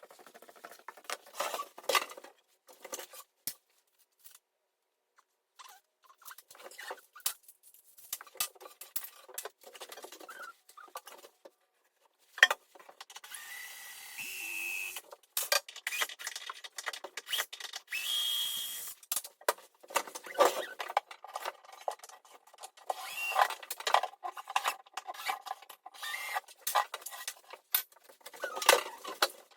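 Knocks, clicks and rattling of upper kitchen cabinets being taken down by hand. A power tool runs for several seconds about halfway through.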